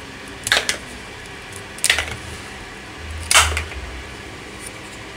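Popsicle-stick rubber-band pistol firing three rubber bands in turn: three sharp clacks about a second and a half apart, the last the loudest, as the bands knock over standing matchboxes.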